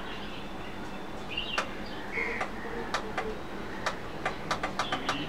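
Scattered light clicks at an uneven pace, coming faster in the second half, from a laptop being worked; a couple of short high bird chirps about a second and two seconds in, over a faint steady hum.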